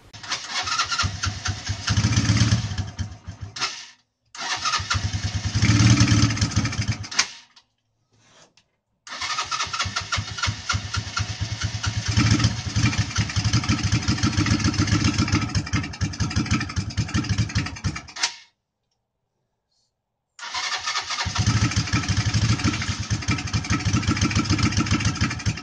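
Suzuki GN125's single-cylinder four-stroke engine being cranked over on the starter in four long attempts, turning over with a rapid even chugging that stops and restarts, without catching and running: the carburettor problem is still not cured.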